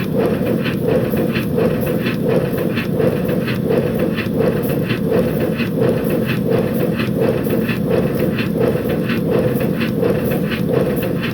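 5-inch gauge BR Class 9F live steam locomotive running on a rolling road: an even chuff of exhaust beats, about two to three a second, over steady steam hiss.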